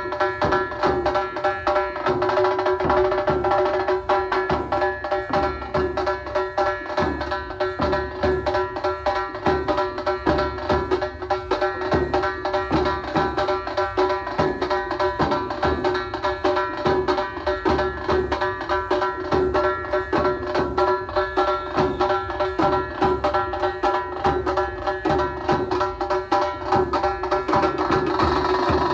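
Lezim troupe music: fast, steady drumming on large drums with the metallic jingle of many lezims, over a held drone that does not change.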